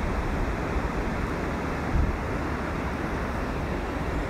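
Steady outdoor noise of wind and surf on the beach, with the wind buffeting the microphone into a low rumble.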